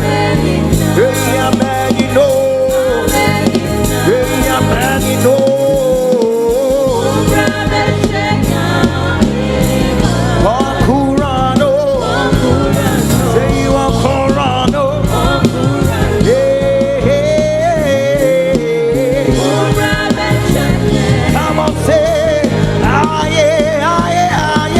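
Live gospel worship music: voices singing a melody together over instrumental accompaniment.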